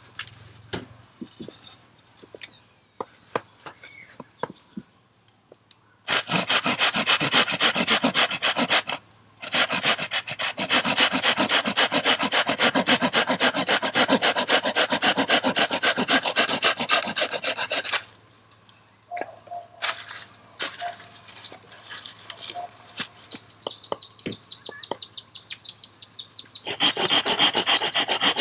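Rapid rasping, scraping strokes in three long bouts with short pauses between them, and light clicks and taps in the quieter stretches.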